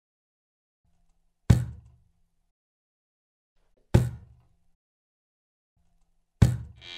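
Three heavy, deep knocks about two and a half seconds apart, each one sudden and fading out within half a second, with silence between them.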